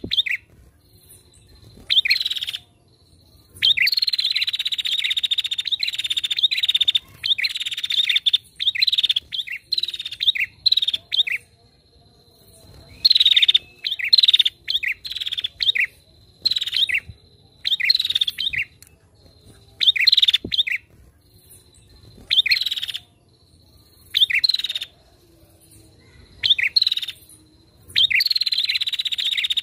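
Female prenjak (prinia) calling energetically, in bouts of fast rattling chatter: many short bursts and a few longer trills lasting a couple of seconds. A thin steady high tone runs underneath.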